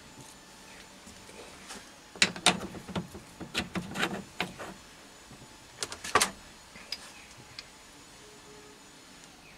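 Metal clinks and knocks as a steel toolpost drill body is handled and seated in a lathe's toolpost block: a run of sharp knocks from about two seconds in, and a single loud knock about six seconds in.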